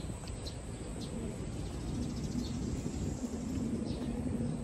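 Small birds chirping now and then over a low, uneven outdoor rumble, with a steady low hum joining about halfway through.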